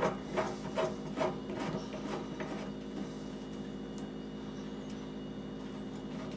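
Faucet valve stem being screwed back into the faucet body, its metal threads giving a run of short scraping clicks, about two or three a second, that stop after a couple of seconds. A steady low hum runs underneath.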